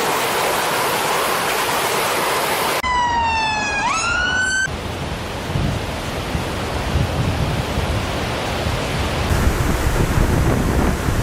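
A steady rushing hiss of floodwater, cut off after about three seconds by a siren wail that slides down and then sweeps sharply up. Then low, gusty wind buffeting on the microphone over rushing water.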